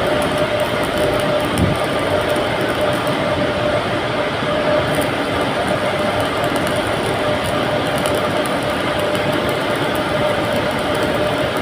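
Electric welding arc running steadily, an even noise with a faint constant tone in it and no breaks.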